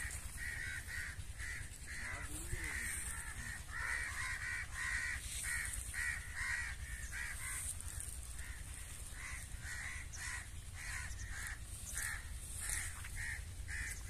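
Birds calling over and over, short calls at about two a second, continuing to the end.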